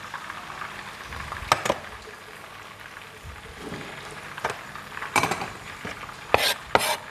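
Scattered sharp clicks and knocks of utensils on plates and a knife on a wooden cutting board, with two louder knocks near the end, over a steady background hiss.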